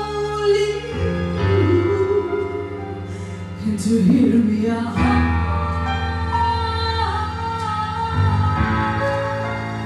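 Roland FP-4 digital keyboard playing slow, held chords while a woman sings a melody over them.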